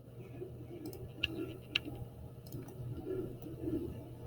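Computer mouse clicks: a few sharp clicks, the two loudest about half a second apart, with fainter ticks between, over a low steady hum.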